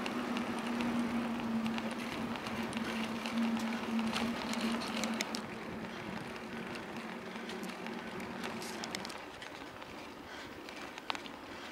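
Riding noise from a bicycle on an asphalt cycle path: rolling tyres and wind on the bike-mounted microphone, with scattered light clicks and rattles. A steady hum runs through most of it and fades out near the end.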